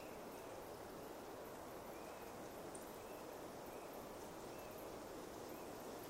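Faint pine-forest ambience: a steady soft rush, with short high chirps from a small bird about once a second and faint high insect ticking.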